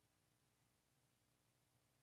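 Near silence: a pause in the speech, with only faint background hiss.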